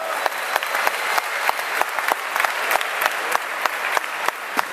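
Crowd applauding, with many sharp individual claps standing out.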